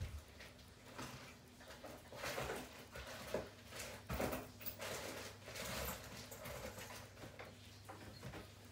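Faint rustling and a few light knocks of objects being moved about and handled, as in rummaging through a drawer or boxes, over a low steady hum.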